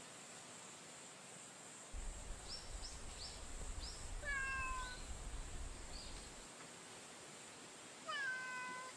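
Street cat meowing twice: one meow about four seconds in and a second near the end, each bending slightly downward in pitch. A low rumble sits under the first few seconds of the sound.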